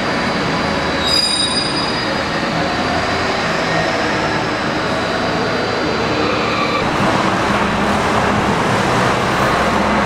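Dezervator car-elevator machinery running as the turntable and shuttle move the car: steady mechanical noise with faint high whining tones.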